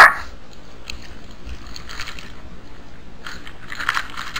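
Irregular crunching, loudest right at the start, then a few quieter bouts about two and four seconds in.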